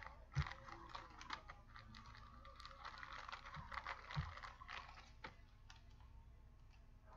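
Hands handling a trading card: a faint run of small clicks and a crackly rustle, with a soft knock about half a second in and another about four seconds in.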